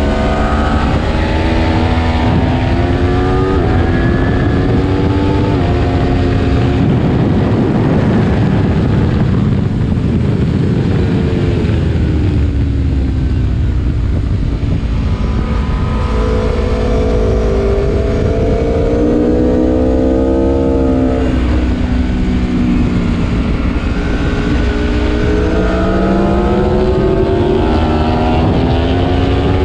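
Aprilia Tuono V4 Factory's V4 engine at racing speed on a circuit, revs climbing hard through the gears and dropping away under braking and downshifts, over a dense rush of noise. The revs fall after about five seconds and stay low for several seconds, then climb twice more.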